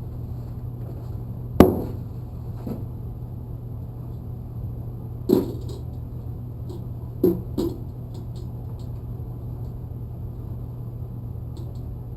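A few sharp knocks and clunks as a heavy portable bandsaw and its packaging are handled: the loudest about a second and a half in, then more around five and seven seconds in, two of them in quick succession. A steady low hum runs underneath.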